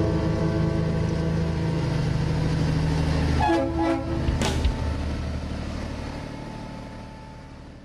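Air horn sounding a long, steady blast over a low engine rumble, broken about three and a half seconds in by a few short toots, then fading away.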